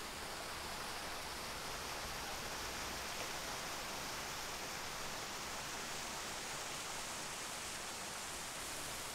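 Steady outdoor ambience: an even, soft hiss with no distinct events, tones or voices.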